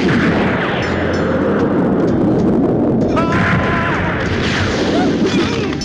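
A sudden loud blast, then a long, loud rumbling noise that carries on with a second burst about three seconds in: a film's explosion or gunshot sound effect.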